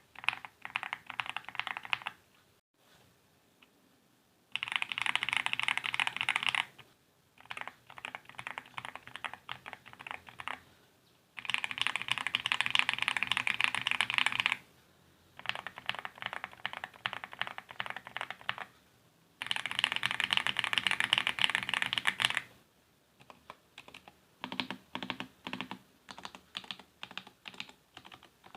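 Mechanical keyboard typing on Akko linear switches in a 60% keyboard with an ABS plastic case, polycarbonate plate and double-shot cherry-profile keycaps. Stretches of fast, dense typing alternate with slower typing of separate keystrokes, with short pauses between.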